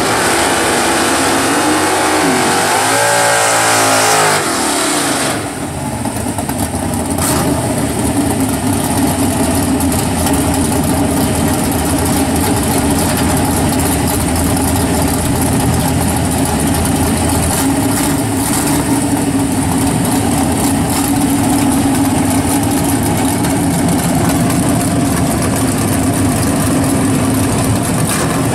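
A drag car's engine pulling hard off the line, its pitch climbing and dropping through gear changes for about five seconds. After a sudden change, a drag car's engine idles steadily and loudly at the start line.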